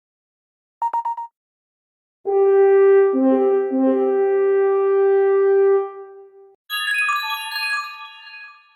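A run of iPhone notification tones. First a quick burst of four short beeps, then a horn-like tone held for about four seconds with a couple of note changes, then a cascade of high chimes stepping downward.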